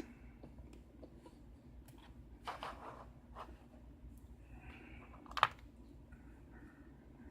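Faint handling noises of small objects on a desk: a short scrape-like rustle and a few light clicks, the sharpest click about five and a half seconds in.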